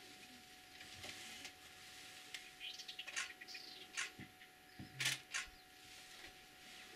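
Quiet outdoor ambience with scattered short high chirps and a few sharp clicks, the loudest about five seconds in.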